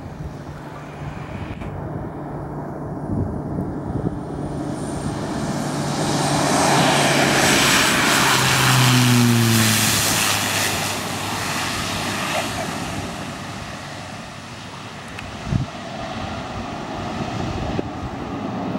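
Cessna 208B Grand Caravan EX turboprop landing: its engine and propeller grow louder on approach, pass close over the runway about nine seconds in with a drop in pitch and a rush of hiss, then fade as it rolls away down the runway.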